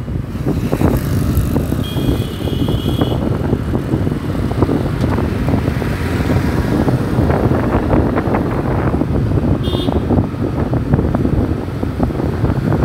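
Riding a motorcycle in city traffic: wind buffeting a helmet-mounted phone's microphone over a steady rumble of engine and road noise. Two short high beeps cut through, one lasting about a second about two seconds in and a brief one near ten seconds.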